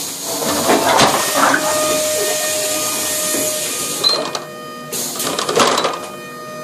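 Compressed air hissing from a train coach's door gear in two long bursts, the second starting about five seconds in, with a rattle; the door is failing to close and stands open.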